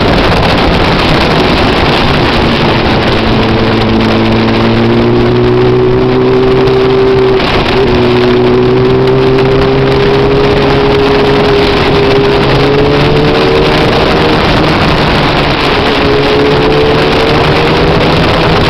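Motorcycle engine running at road speed under heavy wind noise on the microphone. Its note climbs slowly, breaks briefly about seven and a half seconds in, then picks up and rises again.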